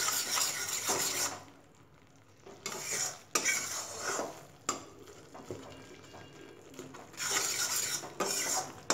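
Metal spatula scraping and stirring a thick mixture of roasted wheat flour, ghee and melting jaggery around a metal kadai. It comes in spells with a short quiet pause after about a second and a half, and now and then the spatula knocks sharply against the pan.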